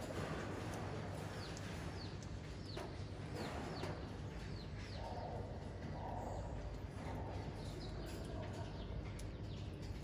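Short, high, falling chirps from a small animal, repeated about every half second, over a steady low hum.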